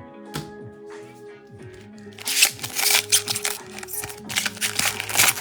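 Background music with a steady tune, and from about two seconds in, loud crackling and rustling as a trading-card pack wrapper is torn open and the cards are handled.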